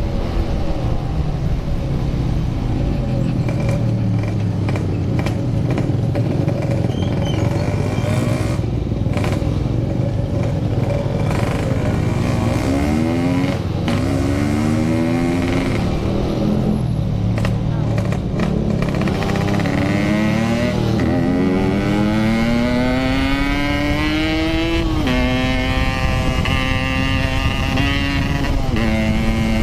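Motorcycle engine accelerating hard through the gears. Its pitch climbs in long sweeps in the second half and drops suddenly at each upshift, over a heavy rumble of wind on the microphone.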